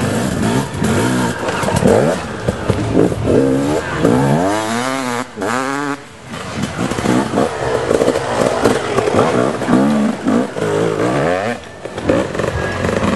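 Enduro motorcycle engines revving hard, the pitch climbing and falling again and again with each burst of throttle as riders work through the dirt course. About five seconds in, one bike sweeps sharply up and down in pitch.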